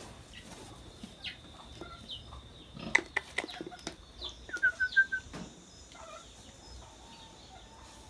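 Scattered farm-animal calls around a pig pen, with a few sharp knocks about three seconds in and a quick run of about five short high notes just past halfway.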